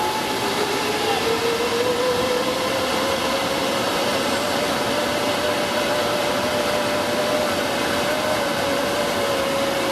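Zip line trolley pulleys whirring along the steel cable, with a steady rushing noise of wind and cable. The whine rises in pitch over the first three seconds as the rider picks up speed, then holds nearly steady. A second, higher whine fades out about a second in.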